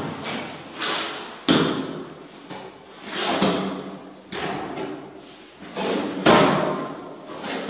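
A trowel scooping tile adhesive from a plastic bucket, scraping against its sides, and dollops of adhesive slapped onto the floor. A run of scrapes and knocks, roughly one a second.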